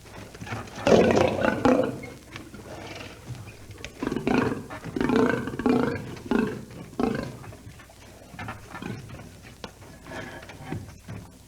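Lion roaring: one loud roar about a second in, then a series of shorter grunting calls from about four seconds in that fade toward the end.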